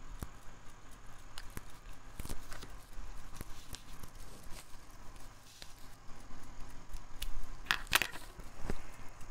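Light handling noises: scattered small clicks and rubbing as a latex ink sac is worked onto a fountain pen section with a bent-wire sac spreader, with a sharper pair of clicks near the end.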